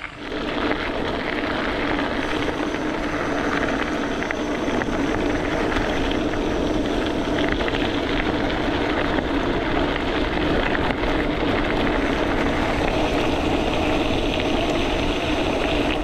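Steady rushing roar of a gravel bike being ridden at speed over a gravel track, with a steady low hum running through it.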